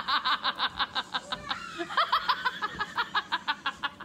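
A woman laughing hard in rapid, high-pitched bursts, about seven a second, with a short catch of breath just before the halfway point.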